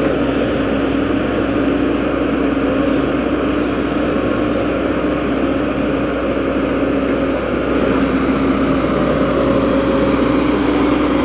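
JCB tracked excavator's diesel engine running steadily while the arm digs and lifts a bucket of soil, with a constant hum under the noise.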